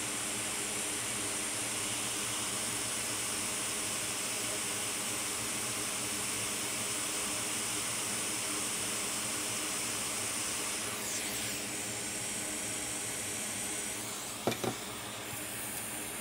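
Steady rushing air hiss of electronics-bench equipment running, with a faint hum underneath. The high part of the hiss shifts a little past the middle, and two short sharp taps come near the end.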